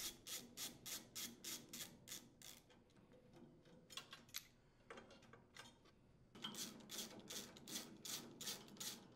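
Faint socket-wrench ratchet clicking at about four or five clicks a second as it backs out the muffler mounting screws. Two runs of clicks with a pause and a few stray clicks between them.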